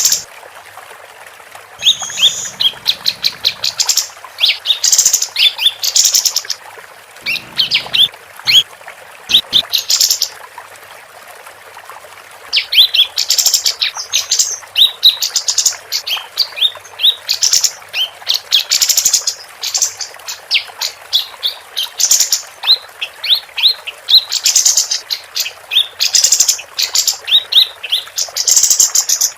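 Female kapas tembak bulbul singing vigorously: rapid bursts of high, quick chirps, each run lasting a second or two, repeated over and over with short pauses between.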